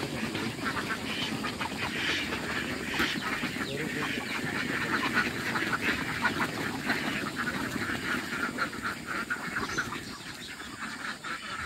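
A large flock of domestic egg-laying ducks quacking together, a dense unbroken chatter of many overlapping calls that grows a little quieter near the end.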